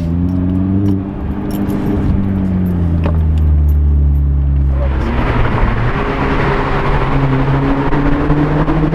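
A 2012 Hyundai Genesis Coupe 2.0T's turbocharged four-cylinder running through a freshly fitted stainless J2 Engineering catback exhaust, cruising with its pitch easing slightly down. About five seconds in it comes onto the throttle: the pitch steps up and the exhaust note turns rougher and fuller.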